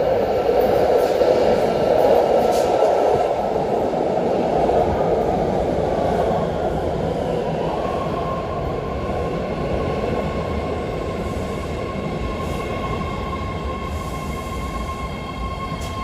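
BART train in an underground station: a loud rumble of the train that slowly eases off, with a steady high whine that comes through clearly in the second half.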